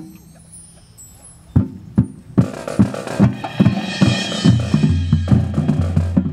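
Marching band percussion: after a short lull, drum strokes come in about a second and a half in and build into a busy rhythmic drum passage. Low held notes join it about halfway through.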